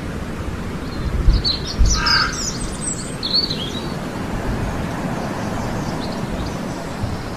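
Wild birds calling: a cluster of short, high calls from about one to four seconds in, over a steady low rumble of background noise.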